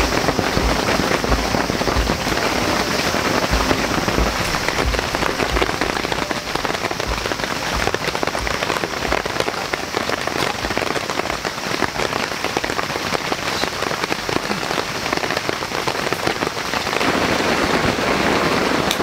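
Steady rain pattering on a tent's canvas overhead, a dense hiss of countless fine drop ticks. A few low bumps come in the first few seconds.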